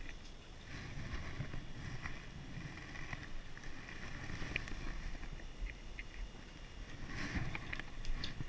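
Rustling and handling noise from heavy winter clothing rubbing against a body-worn camera, an uneven low rumble with scattered small clicks and taps, and a louder cluster of clicks near the end.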